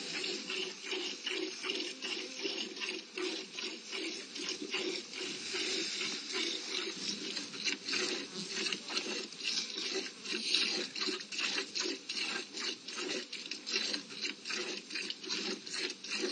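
Cow being milked by hand into a plastic bucket: a steady rhythm of milk squirts hitting the pail, about two or three a second.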